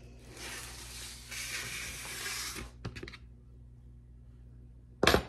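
Soft rustling and tearing as cooked chicken meat is pulled apart by hand, lasting about two and a half seconds. A few light clicks follow, then one sharp knock near the end.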